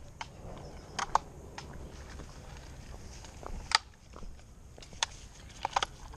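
Footsteps of a person walking dogs, with a few scattered sharp clicks and knocks from the retractable leads and their handling. There is a low rumble of movement underneath.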